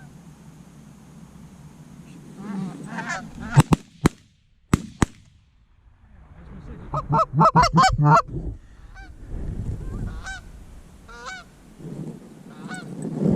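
Goose honking: a few calls, then a dense run of rapid honks about seven seconds in and scattered honks after. A few sharp clicks or knocks, the loudest sounds, come about four to five seconds in.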